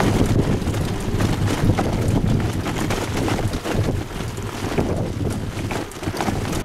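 Wind buffeting the microphone of a camera riding on a bicycle, over a steady rumble and crackle of tyres rolling on loose gravel.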